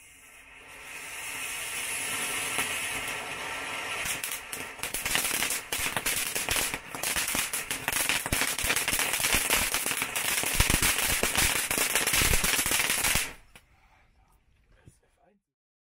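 Small F1 fountain firework burning: a hiss of spraying sparks that builds over the first couple of seconds, joined from about four seconds in by dense crackling, then cutting off abruptly as it burns out near the end.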